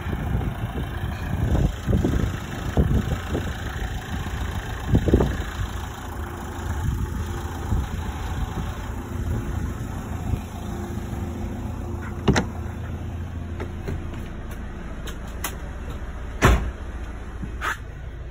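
A steady low outdoor rumble with a few soft thumps early on. In the second half come three sharp clicks, the loudest about two-thirds of the way through, as the motorhome's side habitation door latch is worked and the door opened.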